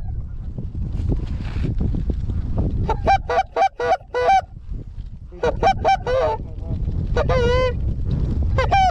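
Goose honks and clucks in quick runs: about five short honks, then several more, then a longer wavering call, and another honk at the very end. A steady low rumble of wind on the microphone runs underneath.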